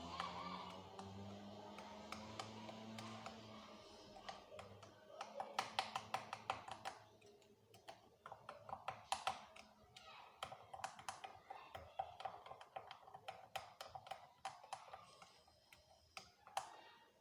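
Light, irregular clicks and taps of a spoon against a glass, stirring a thick paste of ground beetroot powder and coconut oil; the tapping starts about five seconds in and continues in quick runs.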